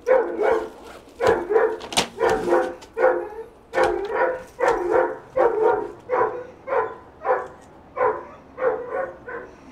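A dog freaking out at someone at the front door, barking over and over in quick runs of two or three barks, about two barks a second, stopping just before the end.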